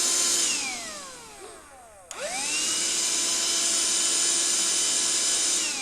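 Small electric motor appliance running with a high whine and hiss, switched off and winding down in falling pitch. About two seconds in it is switched on again with a click, spins up quickly and runs steadily, then is switched off and starts winding down near the end.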